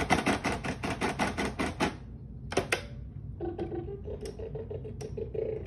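A rapid, even run of sharp clicks, about seven a second for two seconds, then two more clicks, then a steady pitched tone that steps up in pitch.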